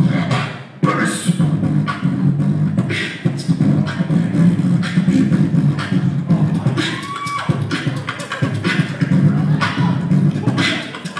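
Solo beatboxing into a handheld microphone, amplified. Quick vocal kick, snare and hi-hat strokes run over a continuous buzzing bass line, with a short break just under a second in and a brief sliding tone around seven seconds in.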